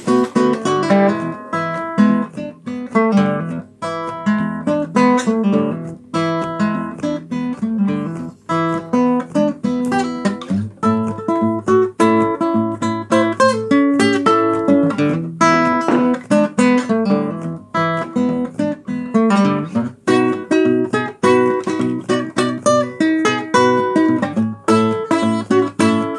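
Background music: an acoustic guitar playing blues.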